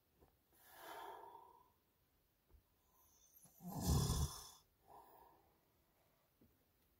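A man snoring in his sleep, picked up by a phone microphone inside a truck: a softer breath about a second in, then a louder, deeper snore around four seconds in.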